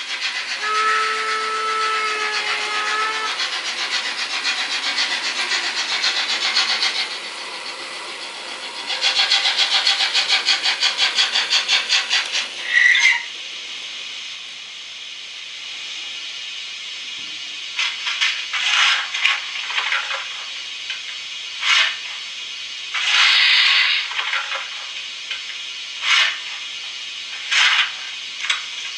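Märklin model steam locomotive sound effects: a steam whistle blows for about three seconds over hissing steam, a fast chuffing starts about nine seconds in, a short squeal follows, and then repeated short blasts of hissing steam.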